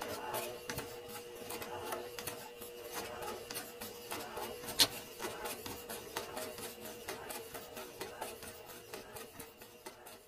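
Domestic electric sewing machine stitching, with a steady motor hum and the needle working in a fast, even rhythm through the fabric. One sharp click about five seconds in.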